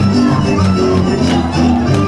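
Lively Hungarian folk dance music: fiddle over a bass line that moves from note to note in a steady beat.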